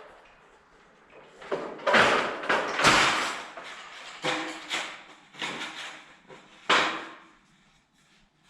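Sheet-metal brake being worked to bend J-channel trim: a series of about seven metal clanks and rattles, some ringing briefly, the loudest around two to three seconds in.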